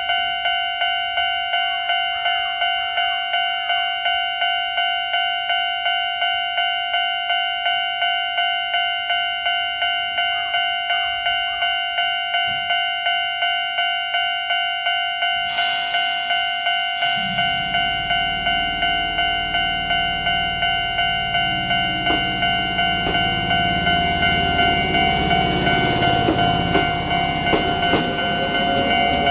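Japanese level-crossing warning bell ringing an old-type standard tone in a fast, even rhythm. About halfway through, the rumble of an approaching Chichibu Railway 7800-series train rises under the bell, and near the end the train runs through the crossing with its wheels clicking over the rails.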